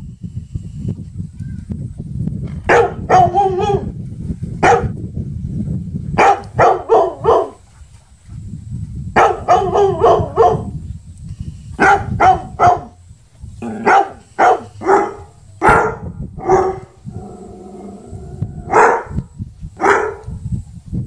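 A dog barking repeatedly in quick runs of three to six barks, with short pauses between the runs.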